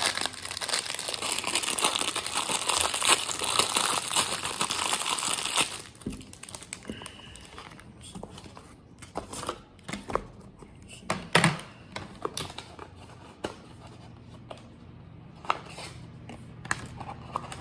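Packaging crinkling and tearing open for about six seconds, then scattered clicks and light rustles as the unpacked items are handled.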